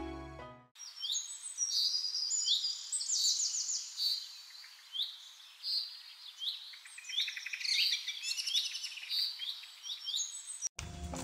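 Several birds chirping and calling in quick, overlapping high-pitched notes. Background music fades out just before they start and cuts back in suddenly near the end.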